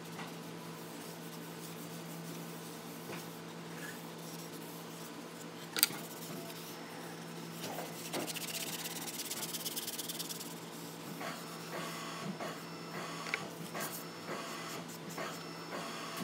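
Foam pad rubbed over carved walnut, wiping on wood finish, with the densest scrubbing a little past the middle and light handling knocks. A steady hum runs underneath, and one sharp click sounds about six seconds in.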